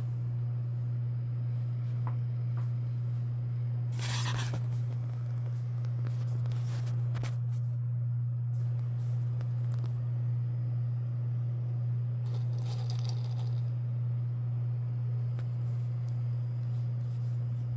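Steady low electrical hum, with a few brief scraping, rustling noises about four, seven and thirteen seconds in.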